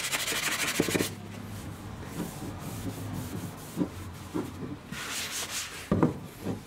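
Cloth rubbing briskly back and forth over a polished steel axe head for about the first second, then softer wiping along the wooden handle. A few light knocks near the end as the axe is picked up and handled.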